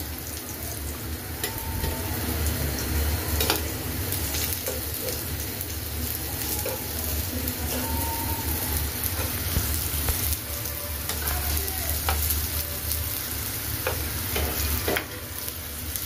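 Jackfruit-seed slices sizzling steadily as they shallow-fry in oil in a frying pan, with a few sharp clicks and scrapes of the spatula against the pan as the pieces are turned and lifted out. A low steady hum runs underneath.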